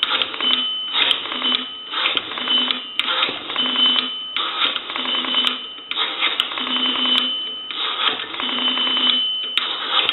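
Rotary dial of a Western Electric three-slot payphone dialing digits one after another: each pull of the dial is followed by a whirring, clicking return that gets longer with the higher digits.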